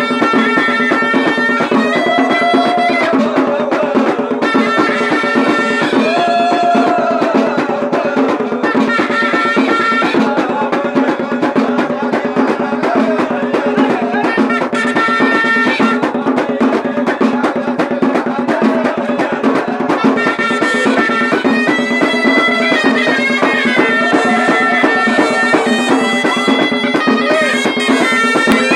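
Moroccan ghaita (double-reed shawm) playing a continuous Hit Gharbaoui folk tune, its reedy melody held over a steady low note, with drums beating along.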